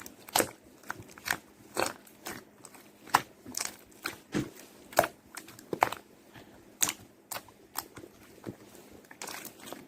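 Slime being squeezed and pressed by hand, making short irregular sticky pops and crackles, about two a second.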